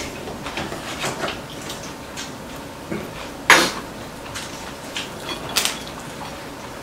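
Metal chopsticks and spoons clinking and tapping against ceramic rice bowls and plates during a meal, in scattered light clicks with one louder clink about three and a half seconds in.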